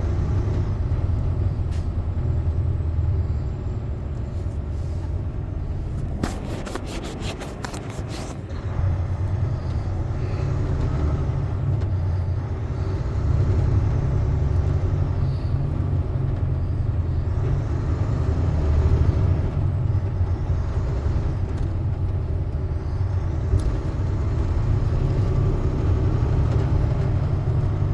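Steady low engine and road rumble heard from inside a big truck's cab. About six seconds in there is a brief run of rapid, evenly spaced ticks.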